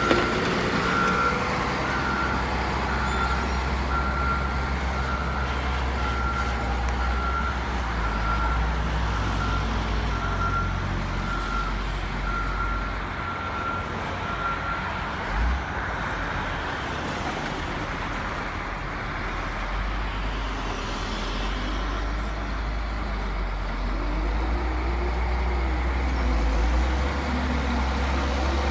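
Heavy diesel construction machinery running, with a reversing alarm beeping about once a second for the first half and then stopping. The low engine rumble dips for a while, then comes back louder near the end.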